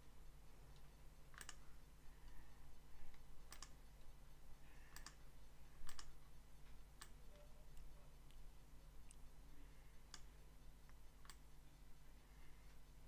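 Computer mouse clicking: single sharp clicks about once a second, heard faintly over a low steady electrical hum.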